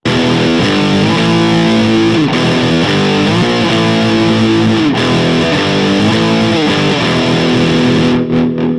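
Budget Rocket Stratocaster-style electric guitar played through distortion, holding sustained lead notes with several string bends. Near the end the distorted haze thins and the notes ring out more cleanly.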